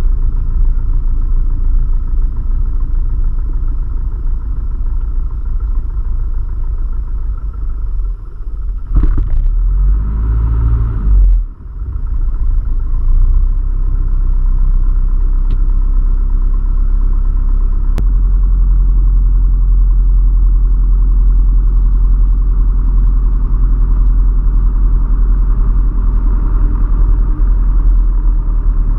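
Single-engine light aircraft's piston engine and propeller running at low taxi power, heard inside the cabin as a steady low drone. A short burst of noise comes about ten seconds in. About two-thirds of the way through there is a click, and the drone turns slightly fuller and steadier.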